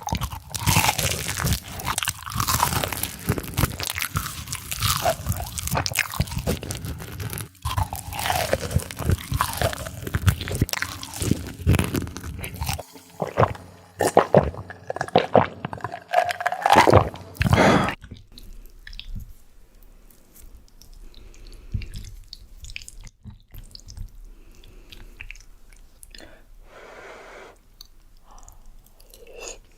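Close-miked eating: loud crunching bites and chewing of crisp food, which give way about two-thirds of the way through to quieter, softer chewing.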